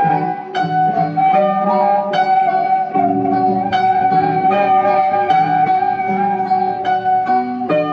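Sundanese kecapi suling music: a bamboo suling flute holds one long, slightly wavering note while a kecapi zither plucks a steady run of notes beneath it.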